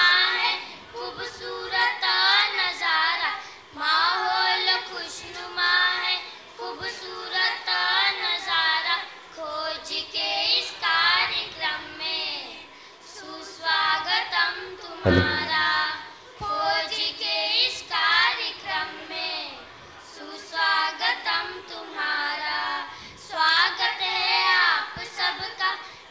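A small group of schoolgirls singing together into microphones, in phrases broken by short pauses for breath. A brief low thump sounds about halfway through.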